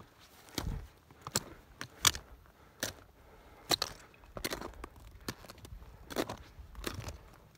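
Footsteps crunching on loose rock and gravel, a sharp irregular step every second or less.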